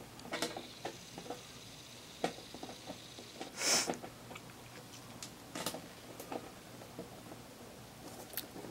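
Faint, scattered clicks and scrapes of a small screw being twisted by hand against the metal bottom of a PC case as it is fed through a mounting hole toward an SSD's threads, not catching. About halfway through there is one brief, louder hiss.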